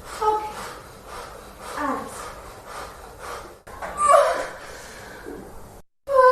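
A woman in labour gasping and breathing hard, with short strained vocal sounds three times. The sound drops out abruptly just before the end.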